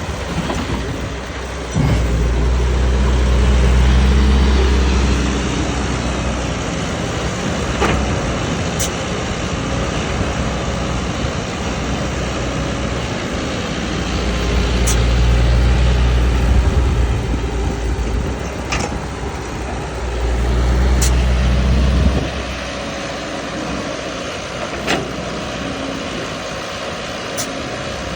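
A vehicle-like motor running steadily with a low pitched rumble that grows loud three times, for a few seconds each, with a few sharp clicks.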